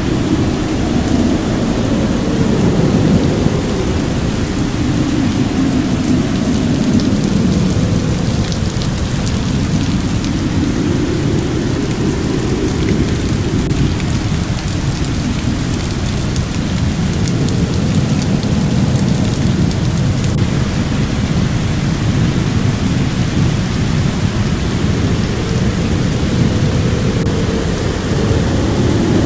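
Heavy rain pouring down steadily, with a deep rumble underneath that slowly swells and fades.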